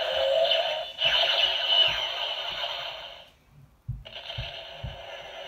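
Electronic sound effects from the Iron Giant figure's built-in toy speaker, thin and limited to the middle range, with falling sweeps over regular low thuds. The sound cuts out briefly about three and a half seconds in, then a quieter effect starts as the figure's chest lights come on.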